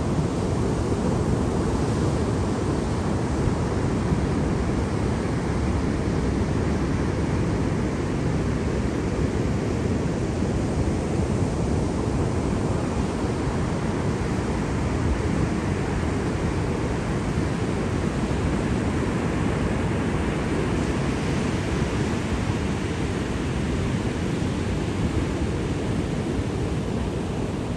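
Ocean surf: a steady, deep rush of waves with no single breaker standing out, a little brighter hiss of water in the last few seconds.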